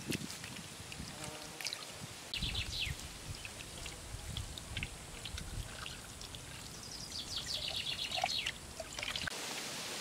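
Small birds chirping in two short runs of quick high notes, over a low steady rushing noise.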